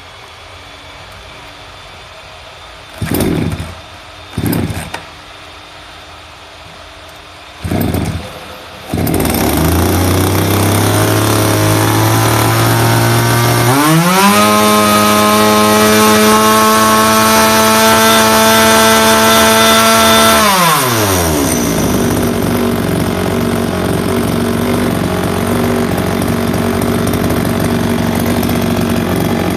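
Kyoritsu CSV3501 two-stroke chainsaw engine being pull-started: three short bursts, then it catches about nine seconds in and idles. It revs up at about 13 seconds, holds high revs for some six seconds, then drops back to a steady idle.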